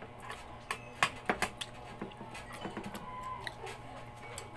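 Scattered sharp clicks and taps of people eating: spoon and fork touching plates, with mouth smacks, over a steady low hum.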